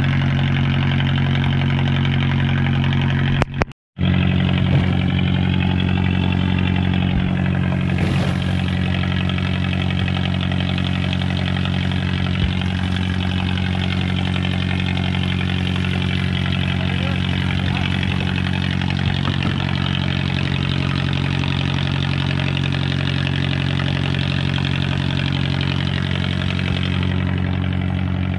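Engine running steadily at idle with an unchanging hum, cut off briefly about four seconds in.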